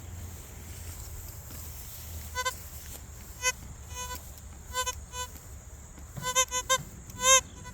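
Metal detector giving short electronic target beeps as its coil sweeps over buried metal: a few single beeps, then a quicker run of them near the end, some bending slightly in pitch.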